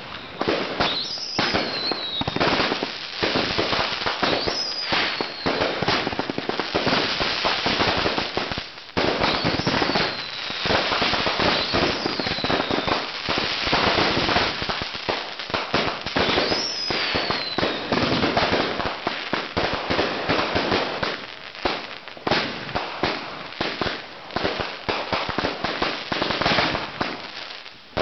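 Consumer firework cakes firing together in a finale: rapid, overlapping bangs and crackling volleys that keep going without a break. Now and then a whistle falls in pitch.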